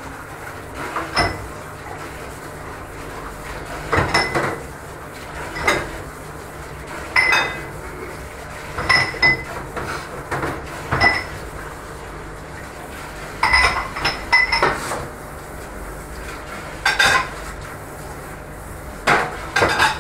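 Ceramic bowls clinking and knocking against each other and the stainless steel sink as they are washed by hand, in irregular clinks every second or two. Under them runs a steady hiss of water from the sink's spray tap.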